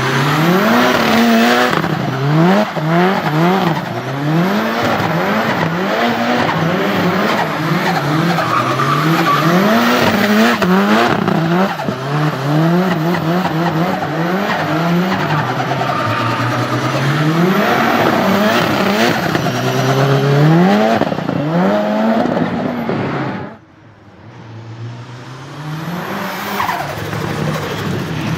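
Turbocharged Nissan 200SX engine revving hard, its pitch climbing and dropping over and over, with tyre squeal as the car drifts. Near the end the engine note falls away suddenly and then builds up again.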